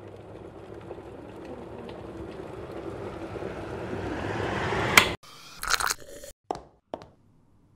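A rising swell of noise grows louder for about five seconds and cuts off abruptly. Close-up sipping from a paper cup follows: a noisy slurp, then a couple of short clicks and taps.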